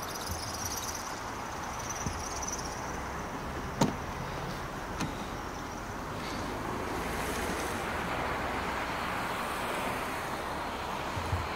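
Volkswagen Golf driver's door being opened: a sharp latch click about four seconds in, then a softer click a second later, over a steady hiss.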